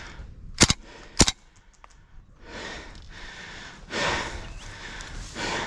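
Two sharp shots from an airsoft gun about half a second apart, then a player's heavy breathing, a few long breaths in and out.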